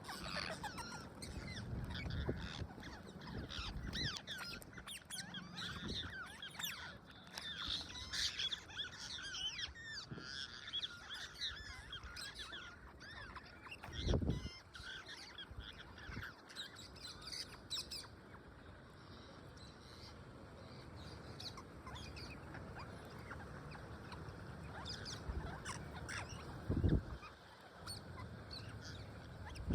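Parrots chattering and squawking, with many quick high chirps crowding the first half and fewer calls later. Two dull thumps stand out, about halfway through and near the end.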